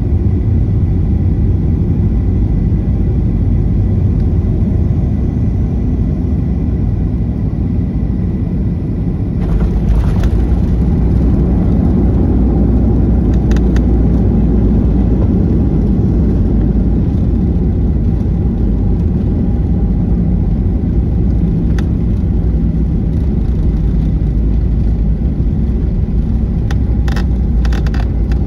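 Cabin sound of a Boeing 737-800 landing: steady engine and airflow rumble on short final, then about nine seconds in the touchdown, a sudden jolt with clicks and a heavier low rumble as the spoilers are up and the jet rolls out on the runway, with light rattles in the cabin.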